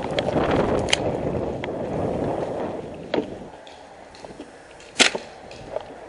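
Airsoft gunfire: a few scattered sharp cracks, the loudest about five seconds in. Underneath is a rustling of movement that dies down about three seconds in.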